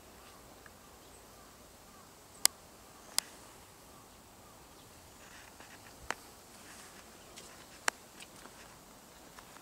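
Quiet outdoor background with four sharp, isolated clicks, the loudest about two and a half seconds in.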